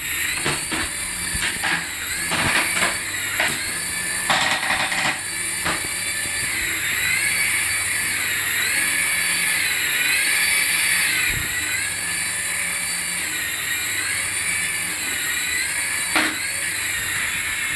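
Electronic sound effect from a battery-powered toy: a warbling tone that wobbles up and down about once a second, with clicks and knocks during the first few seconds.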